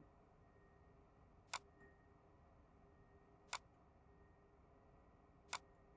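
Near silence with a faint steady hiss, broken by three short sharp clicks evenly spaced about two seconds apart.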